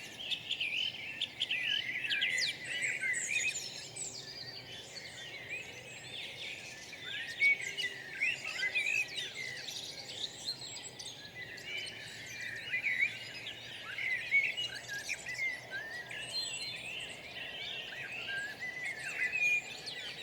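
Many birds singing at once: a dense chorus of short, overlapping chirps and trills.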